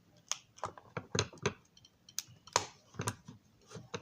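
A small screwdriver clicking and tapping against a plastic model dome car while working at its stubborn interior screws. About a dozen irregular sharp clicks and taps.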